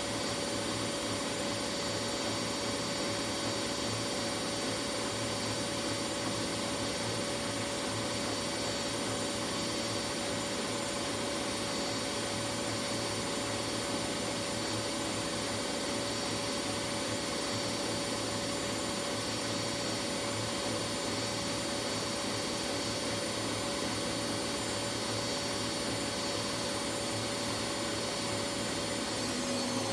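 Whirlpool AWS 71200 front-loading washing machine in its final spin, rated at 1200 rpm: a steady motor whine over a low drum hum. The whine dips slightly in pitch right at the end.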